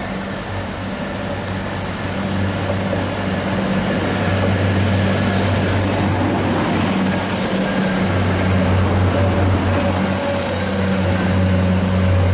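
Transport for Wales Class 175 diesel multiple unit running in alongside the platform. Its underfloor Cummins diesel engines give a steady low hum under a rushing hiss, growing louder over the first few seconds as the train draws close.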